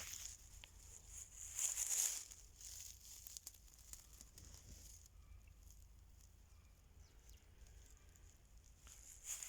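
Faint rustling and crackling, loudest in a brief patch about two seconds in.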